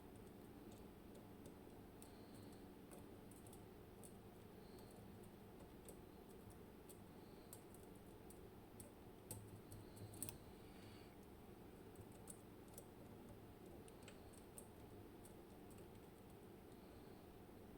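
Faint, scattered clicks of lock picks working the pins and sliders inside an M&C Matrix lock cylinder, with a short cluster of louder clicks about ten seconds in.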